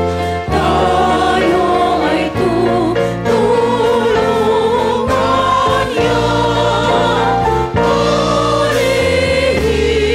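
Small mixed gospel choir singing a praise song into microphones, over accompaniment with a steady bass line that moves in steps.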